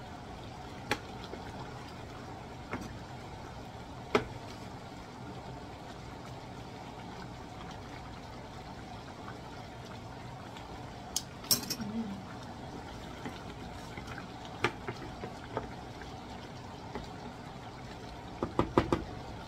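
Wooden spoon stirring a thick chicken and potato stew in a pot, with scattered knocks of the spoon against the pot and a quick run of knocks near the end, over the steady sound of the stew simmering.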